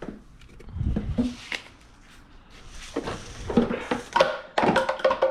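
Irregular knocks, thumps and clatter of hard objects being handled, with a low thump about a second in and a busier run of clattering knocks in the last two seconds.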